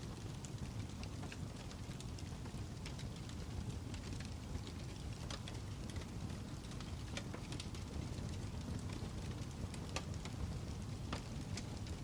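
Campfire crackling: a steady low rumble from the burning wood with irregular sharp pops and crackles, a few of them louder.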